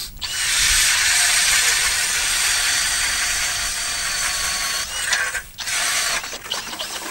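Ice auger driven by a cordless power drill, boring through the lake ice: a steady whirring grind. It runs for about five seconds, stops, and starts again briefly near the end.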